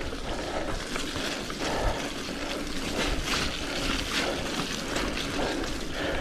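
Mountain bike rolling along a track: steady tyre noise with wind on the helmet camera, with brief louder scuffs now and then.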